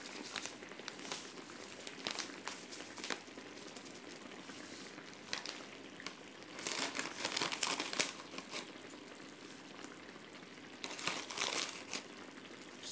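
Plastic sachet of seasoning powder crinkling in irregular bursts as it is handled and a spoon scoops from it, loudest about seven seconds in and again about eleven seconds in.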